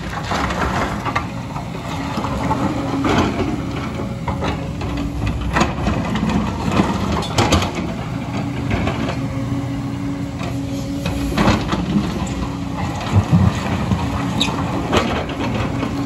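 JCB excavator's diesel engine running under load, with the bucket scraping and knocking against rock and loose stones clattering.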